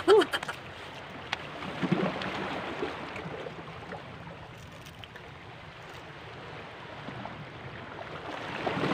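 Sea water washing against shoreline rocks: a steady wash with no clear pattern.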